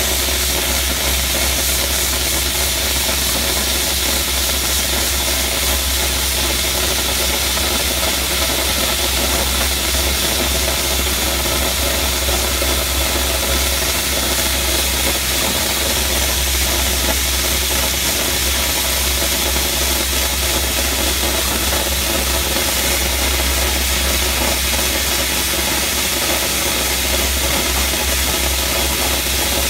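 Dry ice blaster jetting compressed air and dry ice pellets against brick to strip pasted paper and glue: a loud, steady, unbroken hiss. A low steady engine drone runs underneath.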